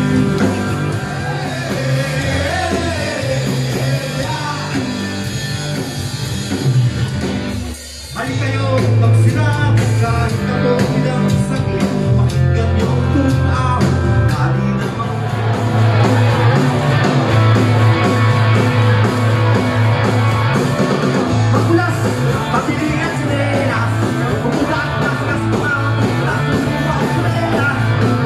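Rock song with a singing voice, guitar and a heavy bass line, dropping away briefly about eight seconds in before carrying on.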